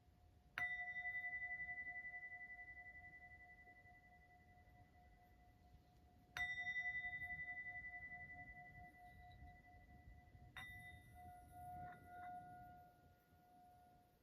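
A singing bowl struck three times, about six and then four seconds apart, each strike ringing on in a slowly fading, pulsing hum. The last ring swells unevenly a second or so after its strike.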